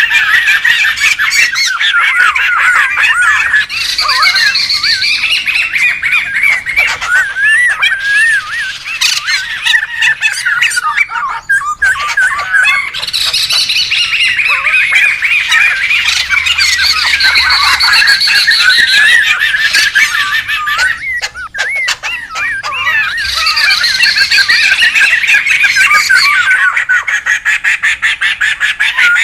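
Several laughingthrushes (poksay) calling noisily together: a dense, unbroken chatter of squawking, warbling calls, with two brief lulls about a third and two-thirds of the way through.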